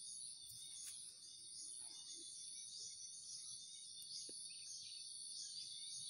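Faint outdoor ambience: a steady, high-pitched insect trill runs throughout, under many short, high bird chirps repeated every half second or so.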